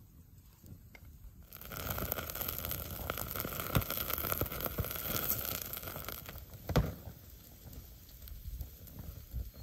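Open wood fire crackling and hissing, with pork bacon fat sizzling as the slab is held in the flames. It starts about a second and a half in, is full of small pops with one sharp pop about two-thirds of the way through, then dies down to a quieter hiss.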